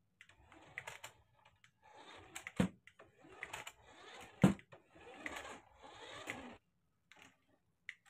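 Toy remote-control car's small electric motor and plastic gears whirring in short stop-start bursts as it drives and turns on a smooth board. Two sharp knocks are heard among the bursts.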